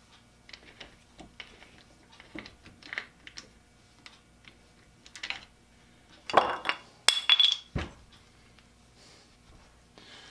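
Metal clinking and clicking as a chuck jaw is slid into its slot on a Skinner Junior 5-inch three-jaw lathe chuck and the scroll is turned to engage it: scattered light clicks, then a louder clatter with a brief ringing clink about six to seven and a half seconds in. A faint steady hum runs underneath.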